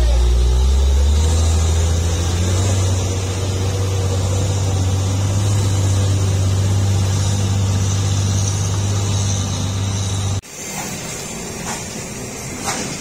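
Heavy loaded cargo truck's diesel engine running with a steady low drone as it pulls away. About ten seconds in, the sound cuts off suddenly to quieter road traffic.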